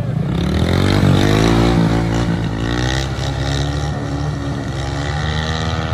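Motorcycle engine running while riding, its revs climbing about half a second in.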